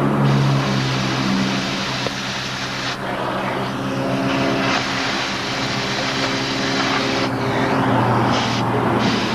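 Oxy-acetylene cutting torch hissing steadily as it cuts through steel plate, over a steady low hum. The hiss eases about three seconds in and comes back strongly a couple of seconds later.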